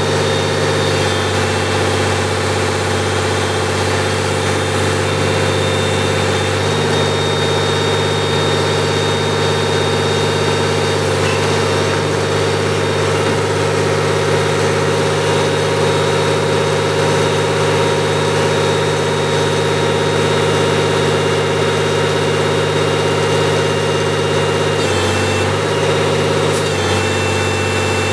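Diesel engine of an FLU419 Small Emplacement Excavator running steadily to power the backhoe, its pitch shifting briefly a few times, most noticeably twice near the end, as the hydraulics take load.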